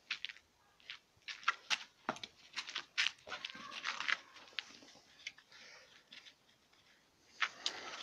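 Irregular crunching of feet and a cocker spaniel puppy's paws in fresh snow: short scattered crunches, thinning out to a quieter stretch just past the middle, then picking up again near the end.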